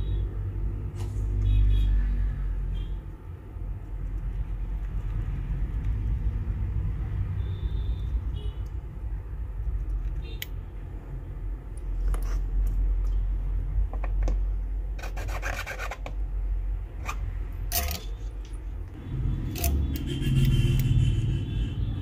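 Steady low rumble with scattered light clicks and rubbing as a soldering tool works the charging jack's pins on a phone circuit board.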